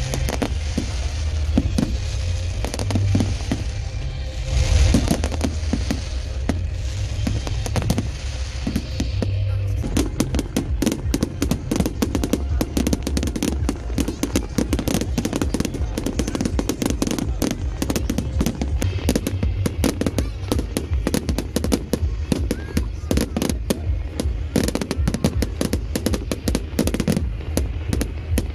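Fireworks display: deep booms of bursting shells, then about a third of the way in a dense, rapid crackling barrage takes over.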